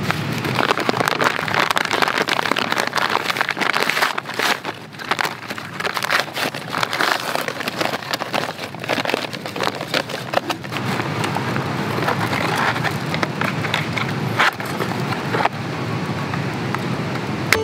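Paper sack of Iwate cut charcoal rustling as it is opened and handled, with the hard charcoal pieces inside clinking and scraping together in quick, irregular clicks.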